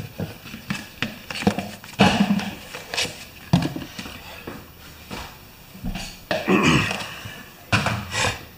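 Plastic tub being handled: the lid pulled off and the tub set down on a workbench, with irregular crackles and knocks.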